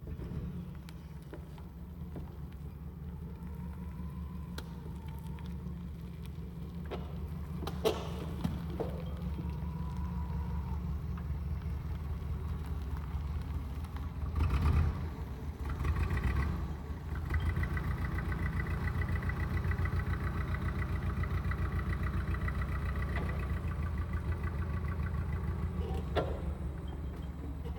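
LPG forklift engine running as the forklift drives with a load on its forks. The engine swells louder for a few seconds about halfway through, then runs on with a steady whine over the rumble.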